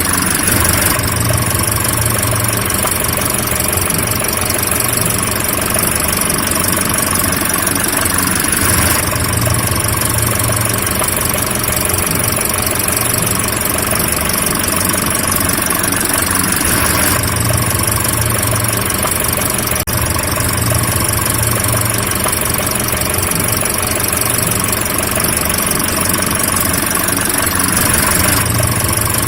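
Car engine idling steadily, with a low hum and an even mechanical rumble that repeats in a pattern about every eight seconds.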